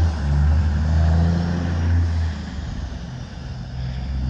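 Diesel engine of a semi truck hauling a loaded dump trailer, pulling away down the road with a low, steady drone. It fades about two-thirds of the way through, then grows louder again near the end.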